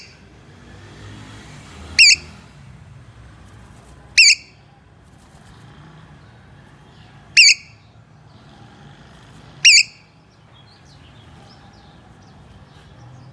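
A parrot giving short, shrill calls, four times a few seconds apart, each with a quick wavering pitch.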